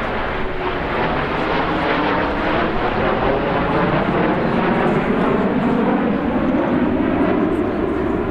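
A formation of nine CT-114 Tutor jets flying past with their single turbojet engines running. The engine whine slides steadily lower in pitch over the last few seconds as the formation goes by.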